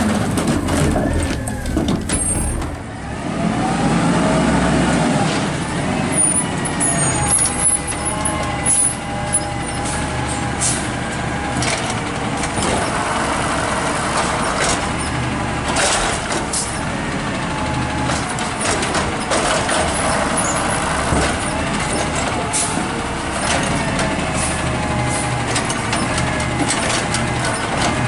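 Garbage trucks at work. A rear-loading truck is heard briefly. Then an automated side-loading garbage truck runs its diesel engine up and down to power the hydraulic lifting arm, with a whine that rises and falls and brief sharp noises as carts are handled.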